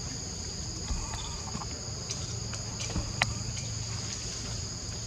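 Steady high-pitched insect chorus, buzzing on two high pitches, over a low background hum. A few faint clicks, one sharper click about three seconds in.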